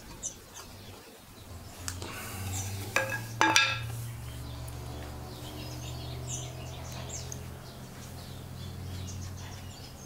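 A few light metallic clinks about three seconds in, as of metal parts or tools being handled, over a steady low hum. Faint high chirps, likely birds, come now and then.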